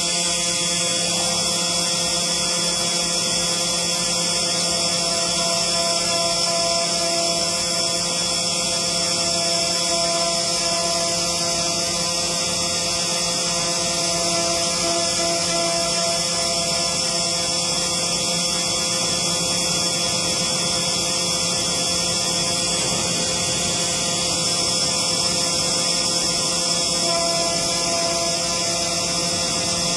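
CNC engraving machine running with a steady hum: several held tones and a high hiss, some tones swelling and fading slightly.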